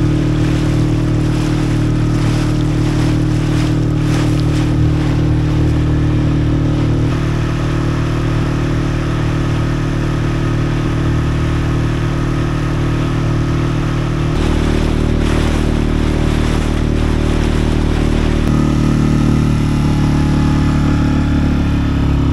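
An engine running at a steady speed. Its pitch shifts to a new level about two-thirds of the way through and again near the end.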